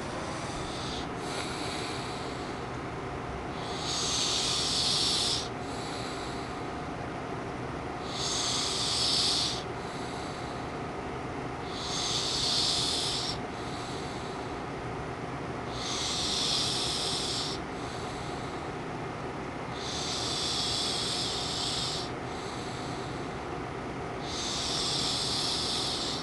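A young girl snoring hard: a loud, hissy snore about every four seconds, each followed by a softer breath, over a steady background hum.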